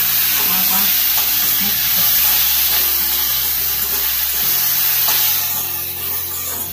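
Sliced onions, green capsicum, cashews and garlic sizzling in hot oil in a wok on high heat, stirred and tossed with a metal spatula. A loud, steady frying hiss.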